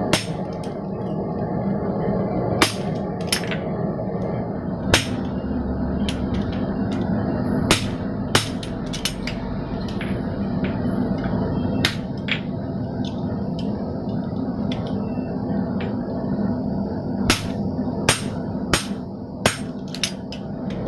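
Hammer blows on a fuller driving grooves into a hot steel bar: about a dozen sharp metallic strikes, irregularly spaced and sometimes in quick pairs or threes. A steady hum runs underneath.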